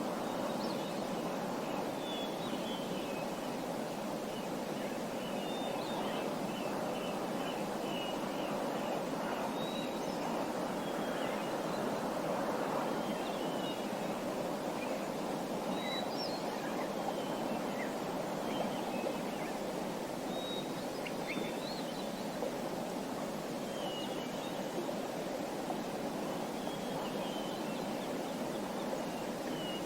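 Small songbirds chirping in short, scattered high calls over the steady rush of running water.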